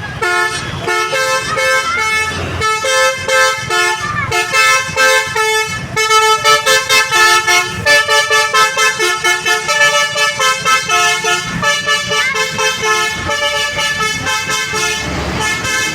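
Basuri telolet bus horn, a multi-tone horn playing a melodic tune of short notes that step quickly up and down in pitch, with a run of fast repeated toots in the middle.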